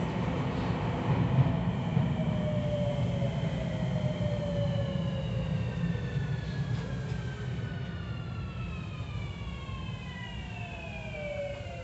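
Tokyu 3000 series train's Hitachi IGBT VVVF inverter and traction motors whining inside the passenger car, several tones falling steadily in pitch as the train slows, over a low rumble of wheels on the rails.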